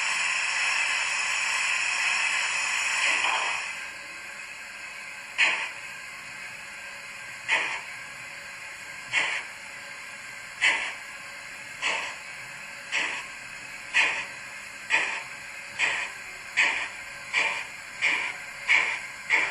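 DCC sound decoder in a Bachmann OO model of a Peppercorn A1 Pacific steam locomotive, reproducing a steady hiss of steam for about four seconds, then exhaust chuffs that begin slow and quicken steadily as the locomotive starts away.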